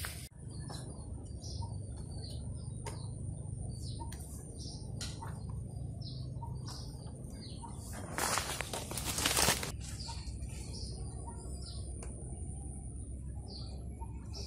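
Small birds chirping in short, scattered calls, over a faint steady high-pitched tone. About eight seconds in comes a loud rustle of palm fronds in two quick parts, lasting about a second and a half, as the bamboo harvesting pole is worked through the coconut palm's crown.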